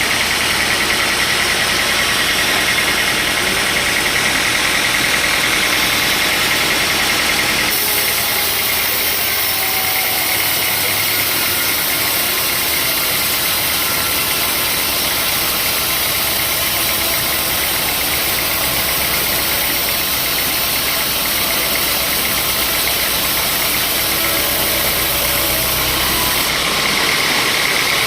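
Sawmill machinery running steadily. About eight seconds in, a brighter hiss comes in over the machine noise and lasts until near the end.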